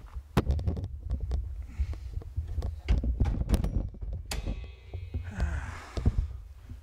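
Handling noise of a handheld camera being carried while walking: a low rumble on the microphone with many irregular thumps and knocks.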